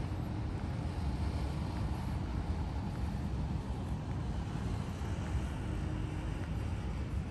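Outdoor street ambience: a steady low rumble, with no distinct events standing out.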